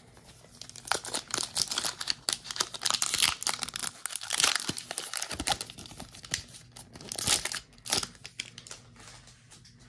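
Foil Pokémon Crown Zenith booster-pack wrapper being torn open and crinkled by hand: a dense run of crackling and tearing. It is loudest in the middle and comes in a couple of sharp bursts near the end, as the cards are pulled out.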